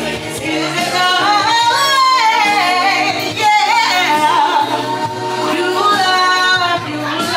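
Music: a song with a sung lead vocal running in long, wavering melodic lines over a steady bass.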